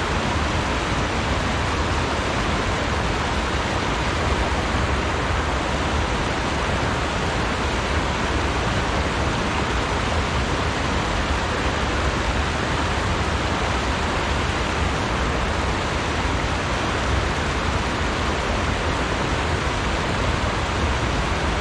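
Steady rush of a shallow, rocky river flowing over riffles and stones.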